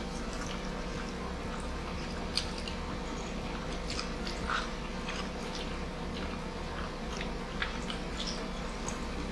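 Chewing and lip-smacking of two people eating grilled chicken and rice with their hands: many short, wet clicks scattered irregularly over a steady low hum.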